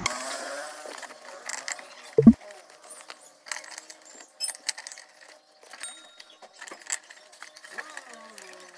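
Fuel pump module and its metal retaining ring being worked into the fuel tank opening by hand: scattered light clicks and metallic clinks, with one loud thump about two seconds in.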